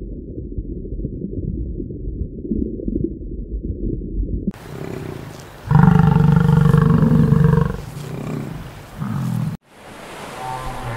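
A muffled low rumble, then a bison bellowing loudly once for about two seconds, with a few weaker grunts after it. Near the end, wind and surf take over.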